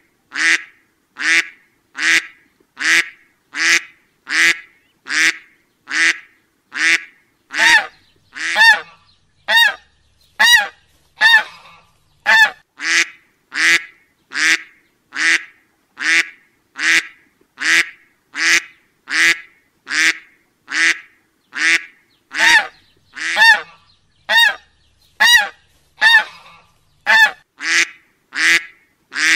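A duck quacking over and over in an even rhythm, about one short quack a second.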